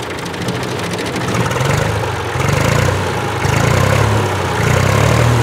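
Old IMT farm tractor's diesel engine running, its low, rapid firing rhythm getting louder a couple of seconds in as it is revved up.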